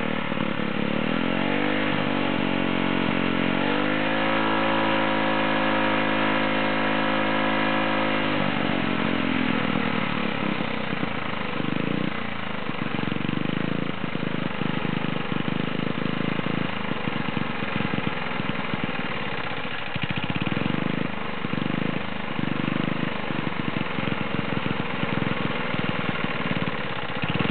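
Turbocharged lawn mower engine revving up and held at high speed for several seconds, then dropping back to run unevenly at a lower speed.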